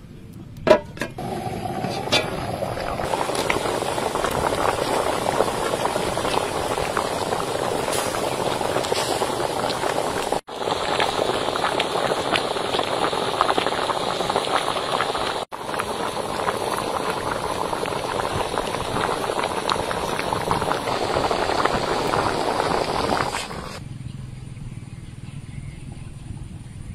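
A metal steamer lid is set down on the pot with a sharp clank. Then water boils hard beneath the steamer tray, a dense, steady bubbling hiss that cuts out twice for a moment and stops about 24 seconds in.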